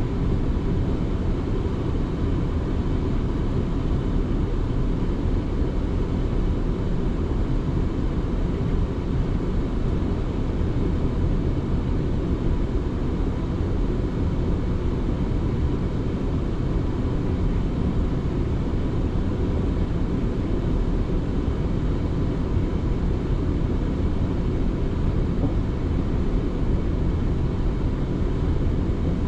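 South Western Railway electric train running between stations, a steady low rumble of wheels on track heard from inside the carriage, with a faint steady hum above it.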